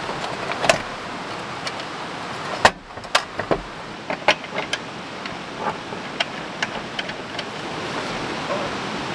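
Clicks, clacks and knocks of a portable propane camp stove being handled: its case unstrapped and opened, and the brass fuel regulator fitted to the stove's fuel input, metal parts knocking on a wooden tabletop. The loudest knock comes a bit under three seconds in, over a steady rushing background.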